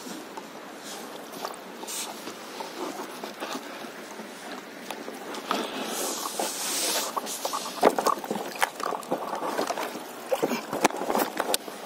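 Irregular knocks, clicks and rustling from hands handling a rope close to the microphone on a stand-up paddleboard, getting busier about halfway through, over a steady low hiss.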